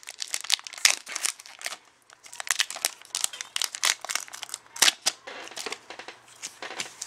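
Foil wrapper of a Pokémon trading-card booster pack crinkling and tearing as it is opened by hand, with a run of irregular sharp crackles.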